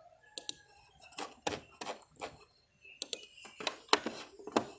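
Computer mouse clicking: a dozen or so separate sharp clicks at irregular spacing, closer together and louder in the second half.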